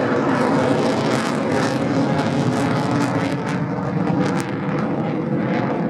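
Twin-engine F/A-18 fighter jet flying overhead: a steady, dense rush of jet noise that thins and fades slightly in the last couple of seconds.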